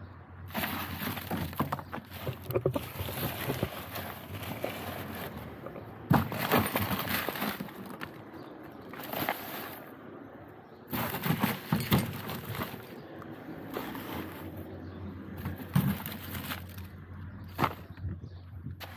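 Irregular rustling and clattering of litter being picked up and handled, with short knocks and crinkles coming in uneven bursts.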